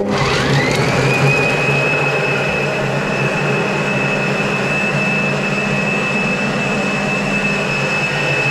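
Blender motor starting up, its whine rising over about a second to a steady high pitch, then running steadily as it blitzes bacon, garlic and onion into a paste.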